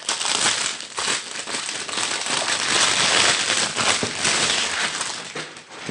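Packaging crinkling and rustling as a parcel is opened by hand, with many small crackles, loudest around the middle.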